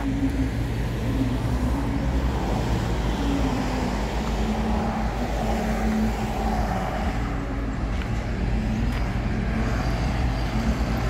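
Steady low rumble of roadside vehicle noise, with a hum that wavers up and down in pitch.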